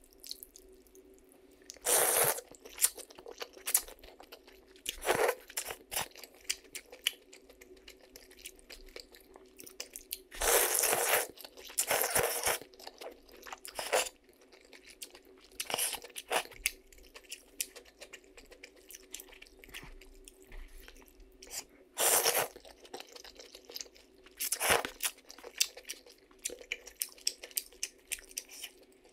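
A person eating noodles from a bowl of noodle soup: chewing and small wet mouth clicks, broken by about seven louder slurps, each lasting up to about a second.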